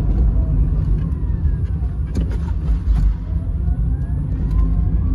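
Inside an ElectraMeccanica SOLO three-wheeled electric car on the move: a steady, loud low rumble of road and tyre noise, with a faint electric-motor whine gliding up and down in pitch as the speed changes. A few light knocks come through about two and three seconds in.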